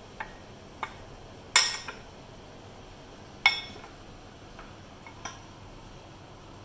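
A steel spoon clinking and knocking against a glass mixing bowl while dry flour is stirred. Two louder ringing clinks come about one and a half and three and a half seconds in, among a few lighter taps.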